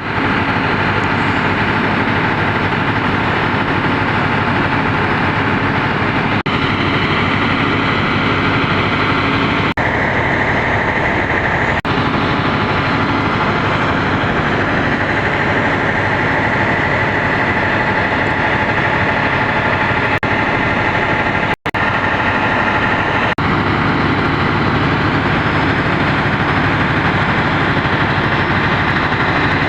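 Train locomotive engine running steadily with a low, even hum, cutting out briefly a few times, most sharply about two-thirds of the way through.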